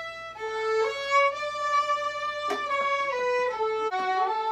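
A solo violin, bowed: one long held note, then a slow melody of sustained notes stepping up and down in pitch.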